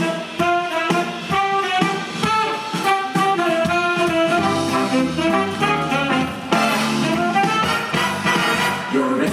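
Loud jazzy show music led by a brass section, with saxophone, trumpet and trombone over a steady beat.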